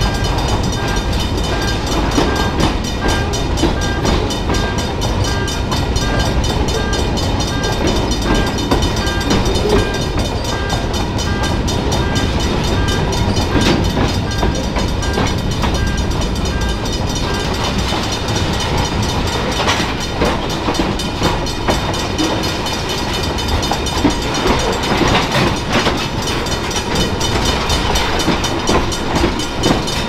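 Freight train of tank cars rolling past at a grade crossing: a steady rumble of steel wheels on rail, with clicks of wheels over rail joints. The crossing's warning bell dings at an even pace and stops about seventeen seconds in.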